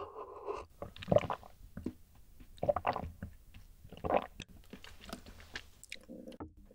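Close-miked swallowing of a milky rice-oat misutgaru drink from a glass: a sip at the start, then three loud gulps about a second and a half apart.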